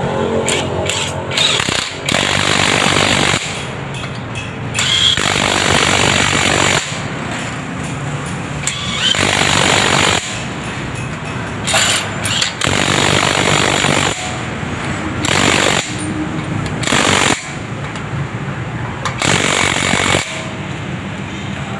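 Impact wrench hammering in repeated bursts of one to two seconds, about seven times, as the lug nuts are run down on a refitted wheel.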